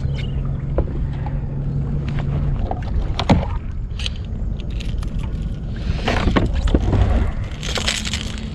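Water splashing and sloshing beside a fishing kayak, with scattered knocks on the hull, as a small hooked snook is brought alongside. The loudest splashing comes late, and a low steady hum stops a couple of seconds in.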